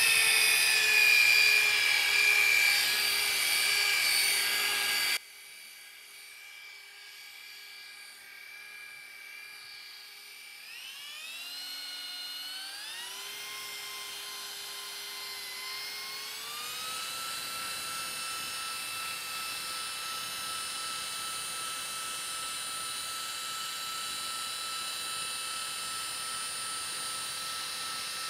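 Electric rotary polisher with a foam pad buffing cutting compound into a plastic headlight lens: a high motor whine with many overtones. It is loud for the first five seconds and cuts off abruptly, then comes back quieter, steps up in pitch in several stages over about six seconds, and holds steady.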